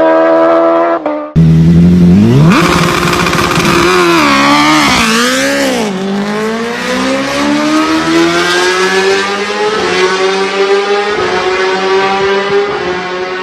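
Superbike engines revving hard. A steady high-revving note cuts off about a second in. A second bike's engine then revs up, blips up and down a few times, and climbs in one long rising pitch as it pulls through the revs.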